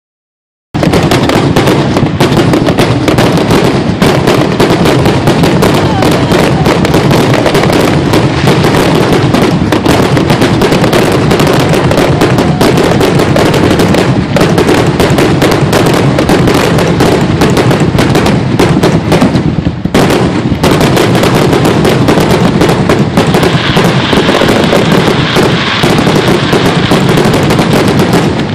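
Fireworks going off in a dense, unbroken barrage of bangs and crackles, very loud, starting suddenly under a second in.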